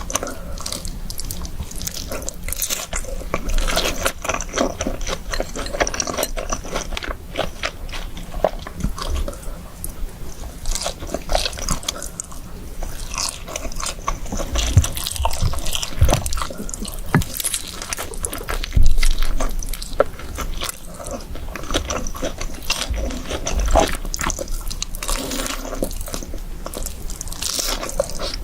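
Close-miked eating: crunchy bites and wet chewing of fried chicken with cheese sauce and rice, a steady run of crackles and smacks, with one louder crunch about two-thirds of the way through.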